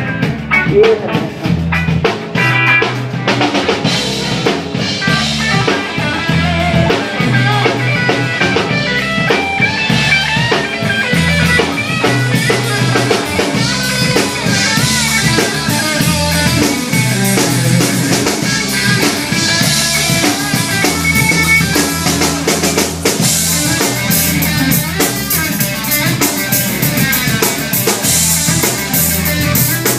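Live reggae band playing an instrumental passage between verses, the drum kit prominent with a steady beat over the band.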